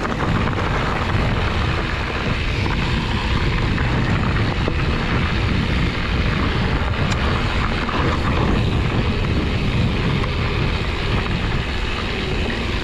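Wind rumbling on the microphone, mixed with tyre and trail noise from a mountain bike rolling along a dirt trail; a steady, mostly low rumble.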